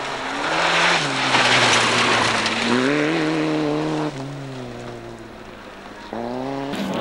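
Rally car engine at full throttle on a gravel stage, its note stepping up and down through gear changes, with gravel hiss from the tyres. It grows fainter about four seconds in as the car moves away, then revs up again near the end.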